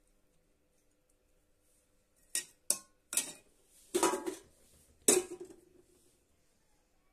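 Stainless steel plates and serving utensils clinking and clattering while food is served: about five sharp metal knocks over roughly three seconds, starting a couple of seconds in, the later ones ringing briefly.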